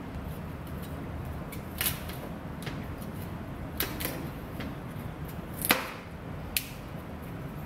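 Chef's knife cutting broccoli florets on a plastic cutting board: a handful of sharp, irregularly spaced knocks of the blade on the board, the loudest about two-thirds of the way through, over a steady low hum.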